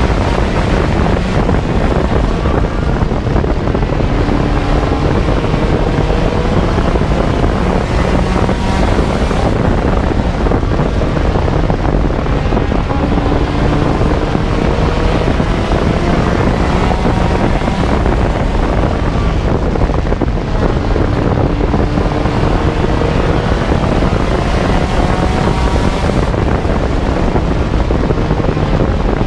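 Four-cylinder race car engine heard from inside the car at racing speed, its pitch climbing and dropping back repeatedly as it accelerates and lifts around the oval, under loud wind noise on the microphone.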